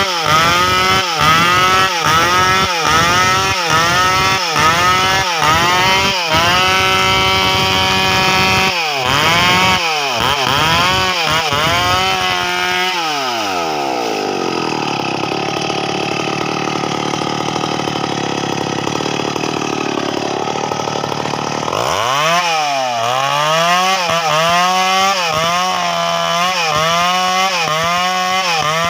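Stihl chainsaw cutting timber into rafters. The engine pitch dips and recovers in a quick repeating rhythm, under a second per cycle. About 13 seconds in the pitch sinks and the saw labours low under heavy load for roughly nine seconds, then it climbs back to the same rhythm.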